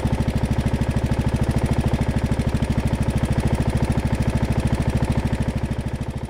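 Briggs & Stratton engine of a Craftsman LT1000 lawn tractor idling steadily at its lowest throttle setting, about 1600 rpm, with an even rapid pulse of firing strokes. The idle is set as low as it will run without stalling, on a newly fitted carburettor.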